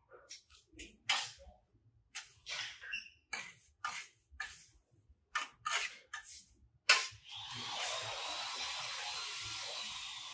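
Steel trowel scraping and spreading wet cement mortar on concrete stair steps and on a plasterer's hawk, heard as a series of short separate strokes. A little past two-thirds of the way through, a steady hiss with a faint wavering whine takes over.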